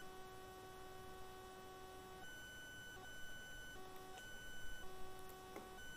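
Faint electronic whine: several steady high tones together that cut out and come back a few times, with a faint click near the end.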